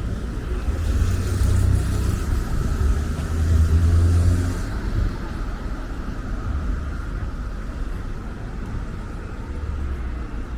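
Wind buffeting the microphone in low, gusting rumbles, strongest about four seconds in, with a rushing hiss over the first half that stops suddenly about five seconds in.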